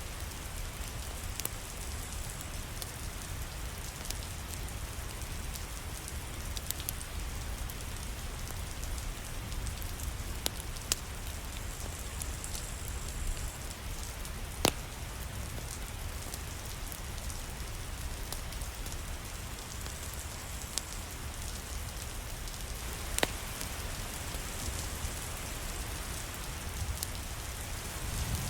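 Steady rain falling, an even hiss over a low rumble, with scattered sharp drop ticks, the loudest about halfway through.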